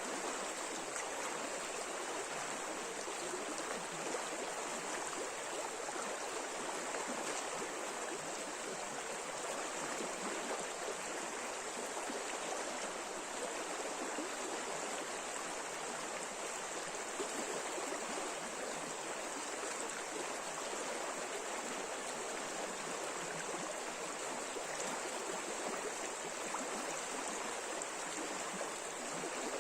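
River water rushing over shallow riffles, a steady, unbroken flow.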